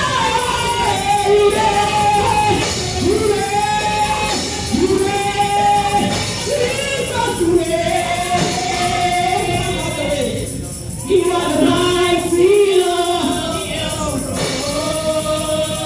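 Gospel praise singing by a group of voices, men and women together, over a steady beat with tambourine.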